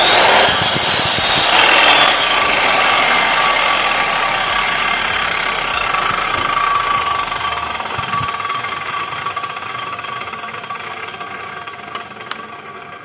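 Power tool motor running with a whine that starts abruptly, rises in pitch and then settles to a steady tone over a noisy hiss, slowly fading toward the end.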